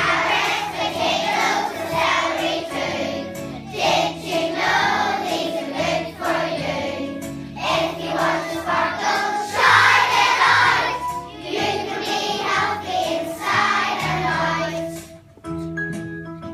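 A group of children singing together to an instrumental accompaniment. The voices stop about a second before the end and the accompaniment plays on.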